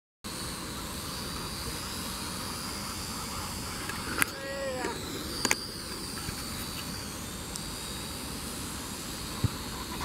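Steady hum of a small quadcopter drone's propellers in flight, with a faint high whine. Two sharp clicks and a brief wavering glide come about four to five seconds in.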